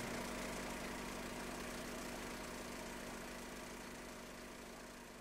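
Faint, steady mechanical whirr with hiss and a low hum, fading slowly.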